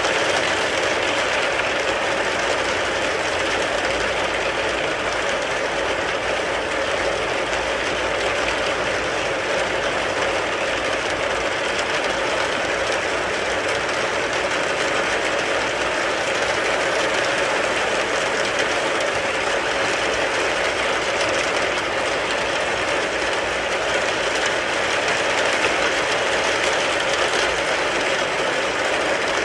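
Rain falling steadily on a car, a dense, even patter of countless drops.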